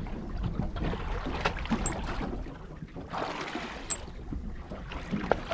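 Wind rumbling on the microphone over water lapping against the hull of a drifting boat at sea, with a few sharp knocks.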